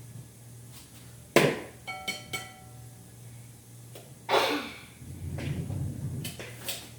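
Hard knocks and clinks against a kitchen mixing bowl while baking. One knock leaves a short ringing tone, and a louder knock-and-rattle comes about halfway through.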